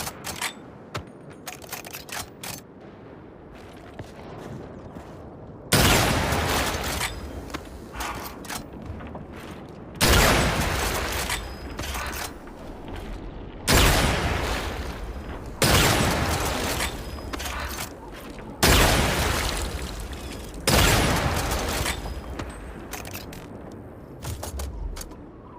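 Rifle gunshot sound effect fired six times, each shot a sudden blast that trails off over a second or two, with light mechanical clicks of the action before the first shot and after the last.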